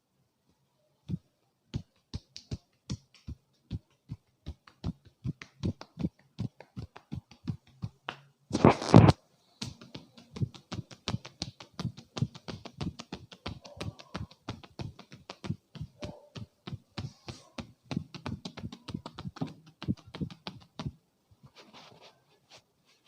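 Hands rhythmically striking a person's head during a head massage: quick sharp taps about two a second at first, coming faster after about ten seconds, with one louder rushing burst about nine seconds in, stopping shortly before the end.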